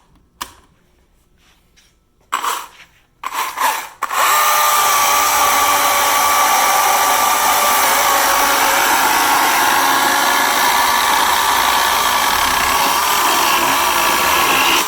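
Husqvarna 120i battery chainsaw: two clicks, then two short blips of the trigger, then the electric motor and chain running steadily at full speed for about ten seconds with a high, even whine.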